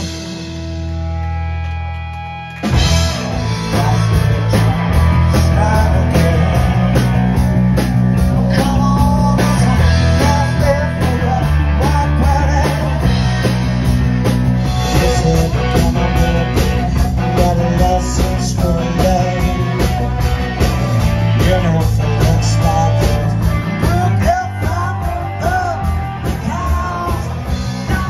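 Live rock band playing. A chord is held for the first couple of seconds, then the full band comes in hard with drums, and a male singer sings over it.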